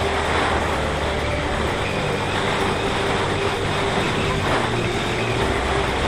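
Steady rush of wind and propeller noise from a camera riding on a Parrot Disco drone in flight, with its rear-mounted electric motor running at part power under a faint steady hum.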